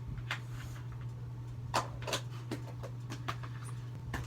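Homemade slime being stretched and squished in the hands, giving scattered small sticky clicks and pops, over a steady low hum.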